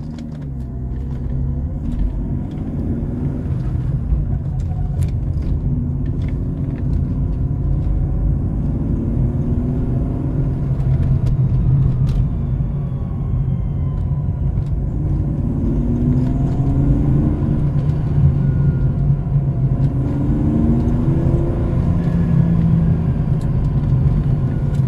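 BMW E36 328i with its M52 straight-six, driven with a steady low rumble, and several times a pitched drone that glides in pitch for a few seconds and fades. This is the noise that comes every time the throttle is lifted, in any gear and at any speed, and still comes after a gearbox swap and a new dual-mass flywheel and clutch.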